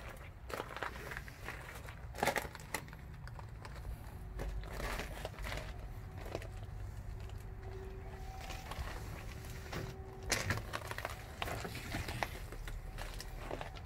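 Footsteps crunching on gravel at a slow walk, over a steady low rumble.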